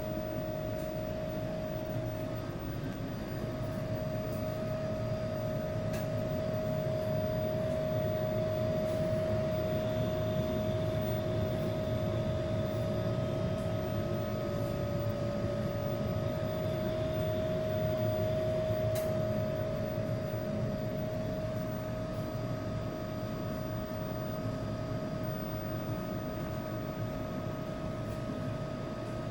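Sakura water heater making an abnormal noise: a steady high whine held on one pitch over a low rushing noise, unbroken throughout.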